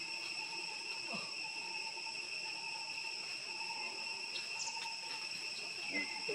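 Steady, high-pitched drone of an insect chorus, with a faint short call about six seconds in.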